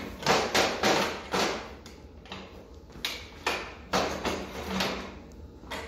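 Exhaust system of a 1980 Honda Hawk 400 being worked loose from the bike: a series of irregular metal clanks and scrapes, one or two a second.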